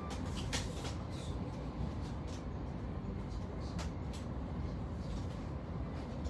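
Passenger train running, heard from inside the carriage: a steady low rumble with a few light clicks and rattles.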